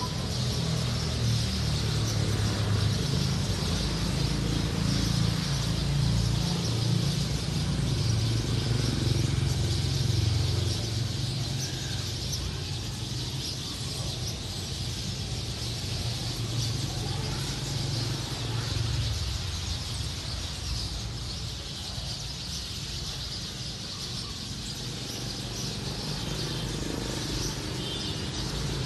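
Many sparrows chirping and chattering together in a tree, a dense overlapping chorus of short calls. A low rumble runs underneath, heavier in the first half.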